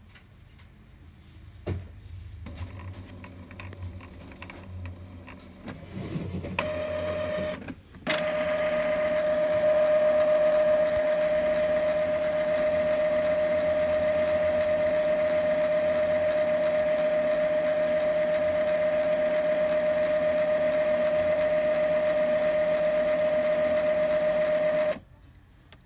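Epson L3150 EcoTank inkjet printer running its power cleaning cycle. Low whirring and clicks as the mechanism starts up give way, about eight seconds in, to a loud, steady motor whine that holds one pitch for about seventeen seconds and then cuts off suddenly near the end.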